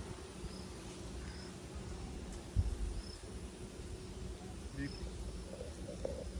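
Honey bees humming steadily around an open hive, with a single low thump about two and a half seconds in.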